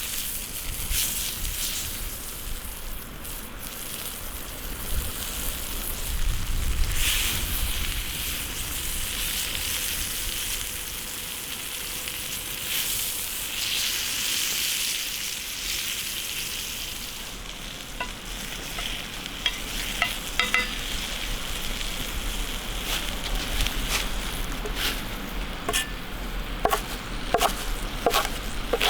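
Chicken mince patty sizzling as it fries in hot oil, a steady hiss, with scattered sharp clicks and pops through the last third.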